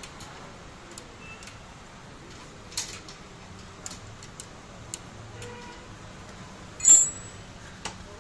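Steel spanners clicking against a motorcycle rear drum brake's adjuster nut and rod as the brake is adjusted: scattered light metal clinks, with one loud sharp metal clank about seven seconds in.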